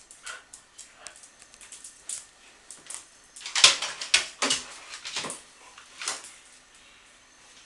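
Two dogs play-fighting: a quick run of short scuffles, huffs and mouthing noises, loudest around the middle, dying away about a second before the end.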